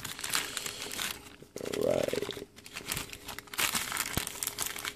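Clear plastic bag crinkling and tearing in the hands as a #35 chain breaker is pulled out of its packaging, with irregular crackles throughout and a short pitched sound about two seconds in.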